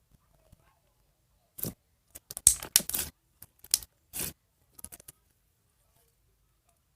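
A cluster of short scraping and rustling handling noises, loudest about halfway through.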